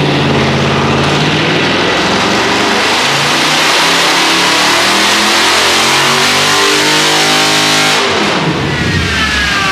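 Dodge Charger Scat Pack's 6.4-litre HEMI V8, with long-tube headers and resonator-deleted exhaust, at full throttle in a dyno pull, the engine note rising steadily in pitch. About eight seconds in the throttle closes suddenly and the revs fall away as it coasts down.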